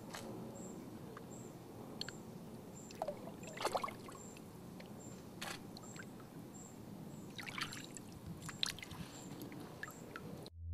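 Faint, scattered small splashes and trickling water as a large common carp is let go from the hands and swims off into the lake.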